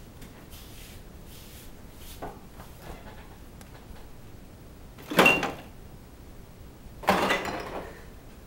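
A door being opened and shut: two loud knocks with a rattle, about two seconds apart, the second one longer, after a few faint clicks.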